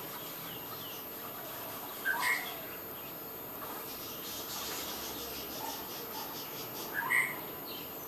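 Bird calls outdoors: two short, loud calls about five seconds apart, with a quick run of faint ticking in the middle, over a steady background hiss.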